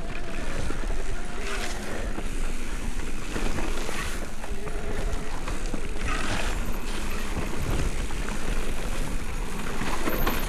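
Wind buffeting the action camera's microphone on a mountain-bike descent, a loud steady rumble mixed with tyre and trail noise, with a few rougher, louder patches.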